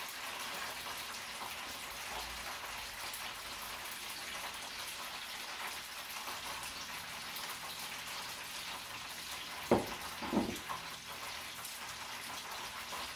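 A steady hiss, with two short crunches about ten seconds in: a person biting into and chewing crispy deep-fried food.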